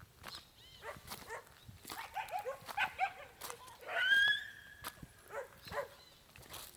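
A dog yapping in a quick run of short barks, followed by a long steady whistle-like tone about four seconds in, with scattered clicks and steps around them.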